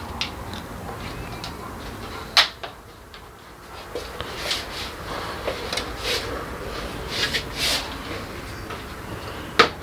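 Plastic shoe-rack frames and metal tubes being handled and snapped together: two sharp snaps, about two seconds in and near the end, with lighter knocks and scraping of the tubes in between.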